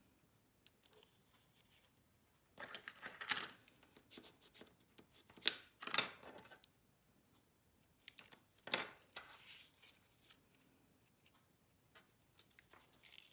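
Cardstock and adhesive-tape backing handled by hand: scattered paper rustles and scrapes, with two sharp clicks a little before halfway and another about two-thirds of the way through.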